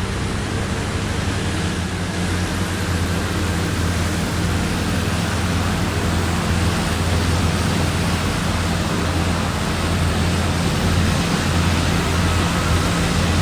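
Strong wind blowing across the microphone: a steady rushing noise with a low rumble that grows slightly louder.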